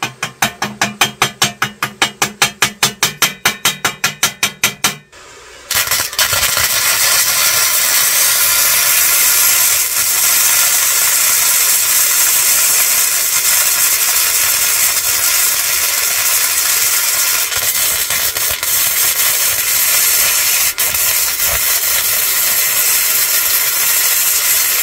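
Gasless flux-cored wire-feed (MIG) welding arc of an M100 Plus multi-purpose welder on steel plate. It starts as short sharp pulses, about five a second, for about five seconds, then after a brief break settles into a steady, continuous crackling sizzle as a bead is run.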